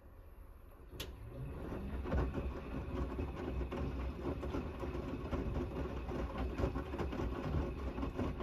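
Gorenje WNEI front-loading washing machine in its main wash: a click about a second in, then the drum motor whirring up and the drum turning, tumbling wet laundry and soapy water with a rough sloshing churn.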